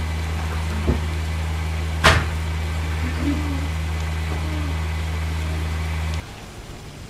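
A steady low mechanical hum that cuts off abruptly about six seconds in, with a sharp click about two seconds in and a lighter one about a second in.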